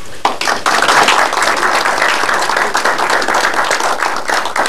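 A roomful of people applauding. Many hands clap densely, starting a moment in and thinning slightly near the end.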